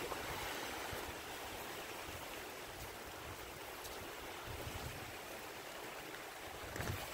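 Steady hiss of gusty wind in the open, with a few soft wind bumps on the microphone around the middle and near the end.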